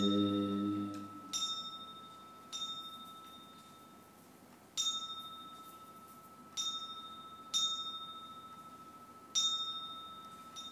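Small metal ritual bell struck six times at uneven intervals, each strike leaving a clear high ring that slowly dies away. Group chanting fades out at the start.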